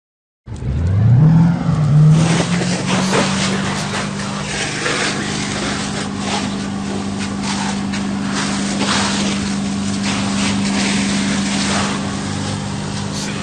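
Fire truck engine revving up about half a second in and settling into a steady high run driving the pump, over the loud rushing hiss of a water stream being sprayed.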